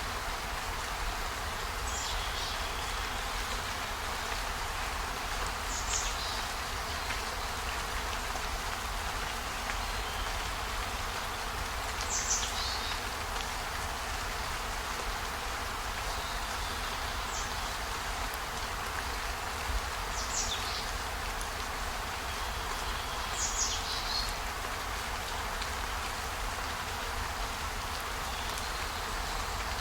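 Steady rain noise with a low rumble underneath. Every few seconds a short, high chirp falls in pitch.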